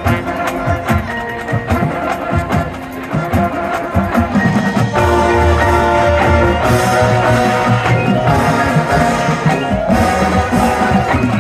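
High school marching band playing its field show with its front ensemble of mallet percussion and drums. The first few seconds are mostly quick struck percussion notes; about five seconds in the full band comes in with held chords and the music gets louder and fuller.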